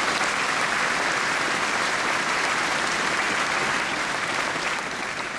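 Audience applauding, a steady mass of clapping that eases off slightly near the end.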